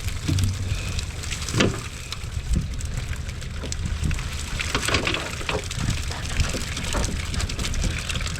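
Wet pattering and splashing with irregular small knocks and crackles, over a low steady hum.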